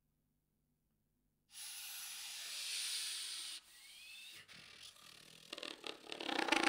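Soprano saxophone played with extended technique. A breathy rush of air through the horn, with no clear note, starts suddenly about a second and a half in. It is followed by a faint rising squeak and then a rapid flutter of clicks and pops near the end.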